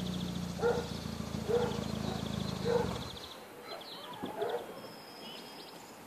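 1993 Mitsubishi Colt 1.3's four-cylinder engine idling steadily through its exhaust, then switched off about halfway through. Throughout, an animal calls in short repeated barks about once a second, over a faint high chirping.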